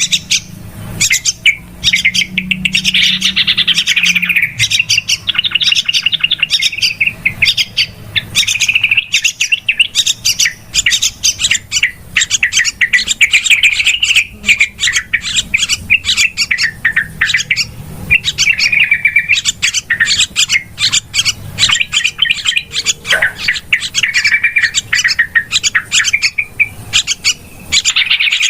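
Yellow-vented bulbuls (trucukan) chattering busily in a dense, unbroken run of rapid calls, over a faint low hum. It is a lure call used to draw in other bulbuls.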